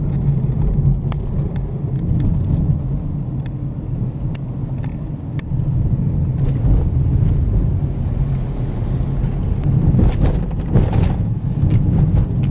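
Car engine and road noise heard inside the cabin: a steady low rumble, with scattered sharp clicks.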